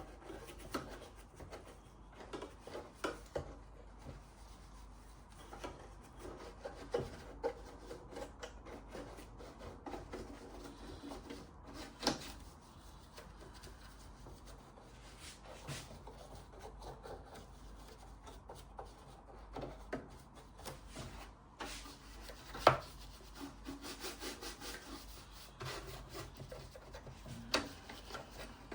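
Hand scrubbing and rubbing at the parts of a Wilesco D32 toy steam engine while cleaning off old grime: irregular scraping strokes with a few sharp knocks, the loudest about two-thirds of the way through.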